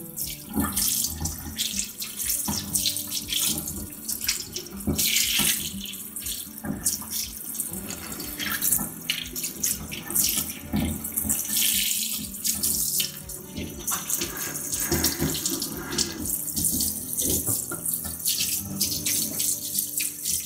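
Tap water running and splashing in a sink as pieces of blanched pork belly are rinsed by hand, washing off the scum left from blanching. The flow is uneven, with spatters coming and going.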